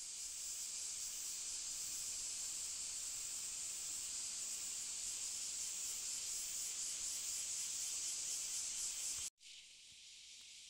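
Steady high-pitched outdoor hiss with no speech. It cuts off abruptly about nine seconds in and is followed by a much fainter hiss.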